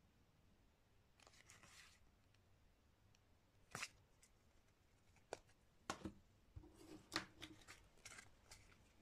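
Playing cards being handled and put into a cardboard game box. A faint soft slide of cards comes about a second in, then a string of sharp clicks and taps from about four seconds on.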